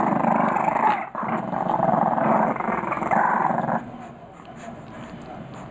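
Three-week-old English Bulldog puppies growling as they play-fight, a rough growl for nearly four seconds with a short break about a second in, then much quieter.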